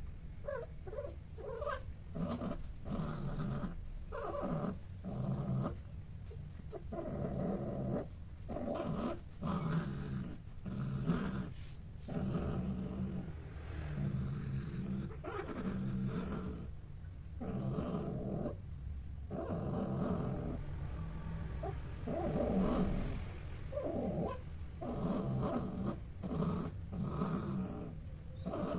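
A pair of cats mating, one or both giving low, drawn-out growling cries that come in repeated bouts of a second or two with short breaks.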